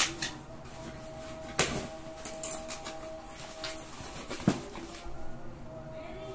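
Cardboard shipping box being opened by hand: a few sharp knocks and scrapes from the flaps and tape, over a faint steady hum.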